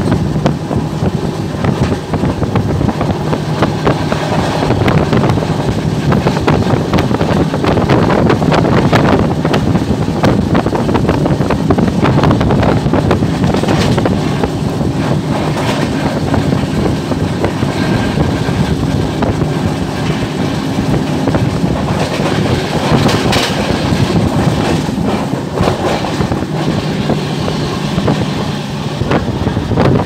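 Passenger train running at speed, heard at an open coach door: a steady rumble of wheels on the rails, with constant rattling clatter.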